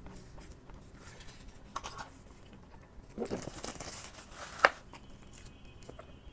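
Plastic dessert packaging being handled and opened: a stretch of rustling and crinkling, ending in one sharp snap of plastic about four and a half seconds in.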